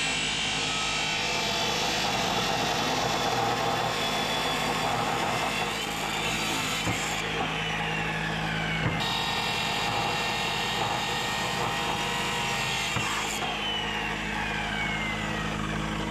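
DeWalt chop saw cutting steel angle iron, a loud steady grinding whine. Twice its pitch sweeps down over a couple of seconds.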